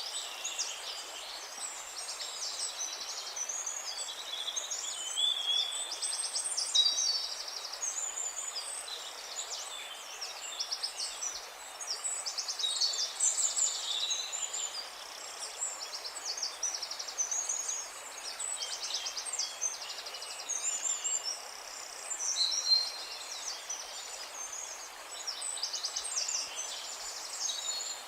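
Songbirds singing continuously: quick chirps and rapid trills overlapping one another, over a faint steady hiss of outdoor background noise.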